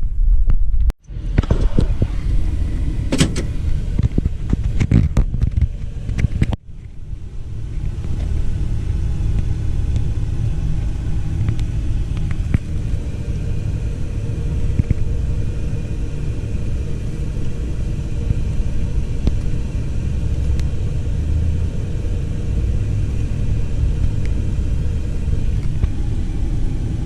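Car being driven: a steady low rumble of engine and road noise. In the first few seconds there are several knocks and clatters, and the sound breaks off abruptly twice.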